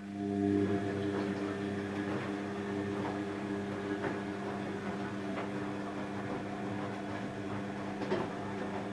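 Steady electric hum of a small motor, switched on abruptly and running evenly, with a few faint clicks over it.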